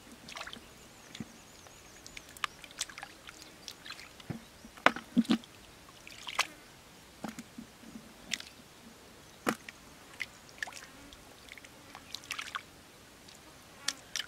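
Hands splashing and squelching in shallow muddy water while groping for fish: irregular small splashes and wet slaps, the loudest a pair about five seconds in.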